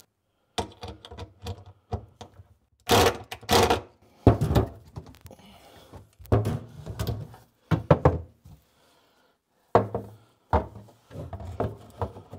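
Irregular knocks and thunks of parts and tools being handled against the wooden sink cabinet while an under-sink water filter is fitted to the cabinet wall, with a few louder, sharper knocks about three to four seconds in.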